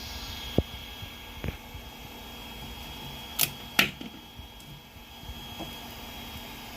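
Flashforge Adventurer 5M Pro 3D printer running, a steady fan hum with a high whine. Two soft knocks come in the first second and a half, then two sharp clicks about three and a half seconds in.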